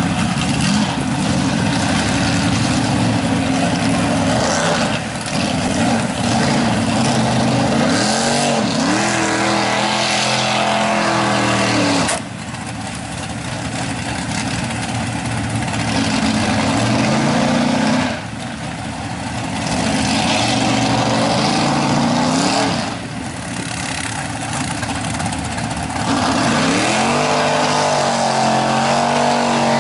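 Big-block V8 engine of a Mazda mega mud truck revving hard as the truck churns through deep mud. The throttle eases off briefly three times and the revs climb again each time.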